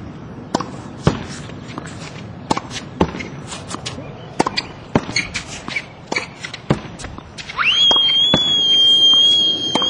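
Tennis ball hit repeatedly against a practice backboard: sharp pops of racket strikes, wall rebounds and bounces on the hard court. About seven and a half seconds in, a loud, high, steady whistle-like tone starts with a quick upward slide and holds to the end.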